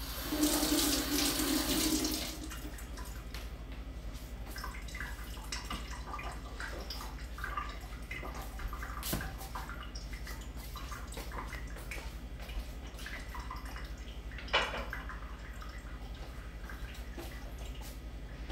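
Kitchen sink tap running for about two seconds, then shut off, followed by scattered light clinks and handling sounds at the counter, with one brief louder rush about fourteen and a half seconds in.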